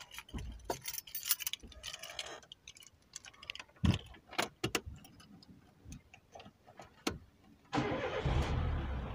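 Scattered clicks and knocks, then near the end the Renault 1.4 petrol engine starts: a brief burst as it cranks and catches, settling into a steady idle rumble. It runs on freshly cleaned and gapped spark plugs.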